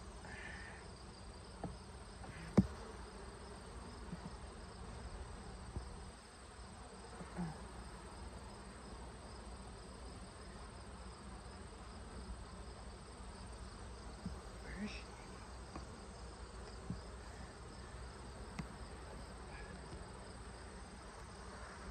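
Honeybees buzzing steadily around an open hive as its frames are worked, with a few light clicks of wood and hive tool; one sharp click about two and a half seconds in is the loudest sound.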